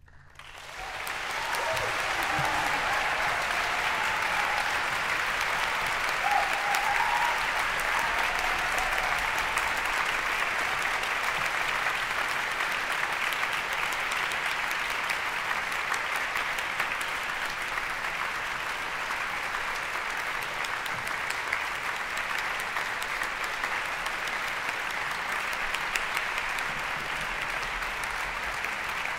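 Large audience applauding in a concert hall, breaking out within the first second or two and holding steady.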